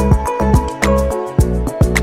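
Background music with a steady beat: a low bass line under sustained pitched notes and regular drum hits.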